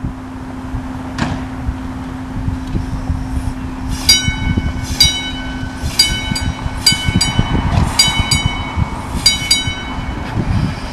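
South Shore interurban electric car No. 30 rolling on the rails with a steady hum, wheel rumble and knocks. From about four seconds in, its bell rings repeatedly, roughly once a second.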